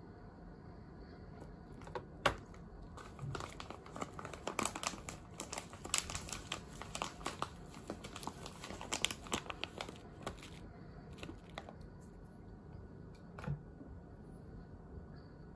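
Foil coffee bag crinkling as it is folded and handled, a dense run of crackles lasting several seconds that stops about two-thirds of the way through. One soft knock follows near the end.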